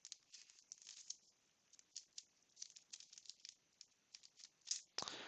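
Trading cards being handled: faint, irregular small clicks and rustles as the cards slide and tap against each other, with a louder rustle near the end.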